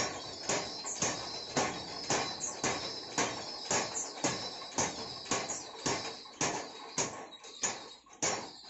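Steady forging hammer blows on steel, about two a second, each with a bright metallic ring.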